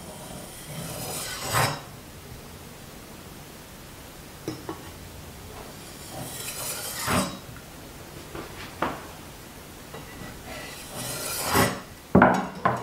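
Chinese cleaver cutting a sheet of rolled dough into strips on a wooden cutting board: three slow cuts, each a scrape that builds and ends in a knock of the blade on the board, with a few light taps in between.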